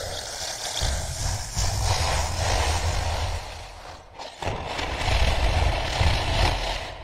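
Monster creature sound effect for the Dinocroc: two long, rough, rumbling growls, each swelling and then fading, the second about four and a half seconds in.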